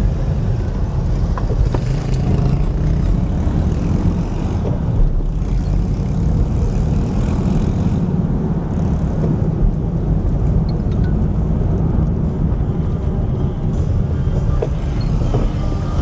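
Car cabin noise while driving slowly along a street: a steady low rumble of engine and tyres heard from inside the car.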